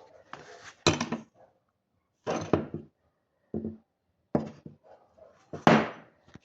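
Five separate knocks and clatters of metal being handled, each with a short ring. The loudest comes near the end.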